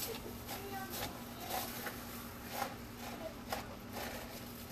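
Spoon stirring Rice Krispies into a sticky mixture in a plastic Tupperware bowl: irregular scrapes and soft crunchy clicks.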